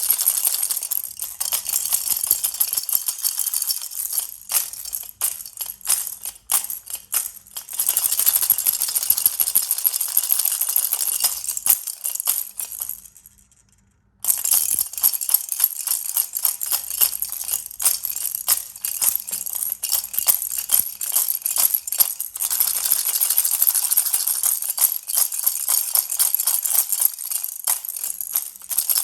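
Baby rattle shaken in a fast, continuous jingling rattle, loosening into separate clicks and shakes a few seconds in. About halfway through it fades out to a brief silence, then starts again at once and rattles steadily on.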